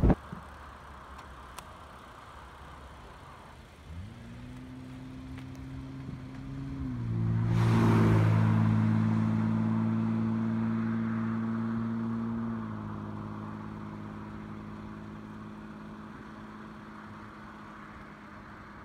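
A car passing by on the road: its engine hum and tyre noise build to a peak about eight seconds in, then fade slowly as it drives away.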